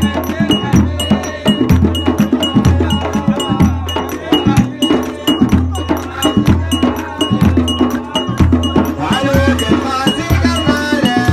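Traditional Gulf folk wedding percussion: deep drums beating a steady rhythm under dense sharp strokes, with a bright metallic ring struck again and again. Voices singing come in about nine seconds in.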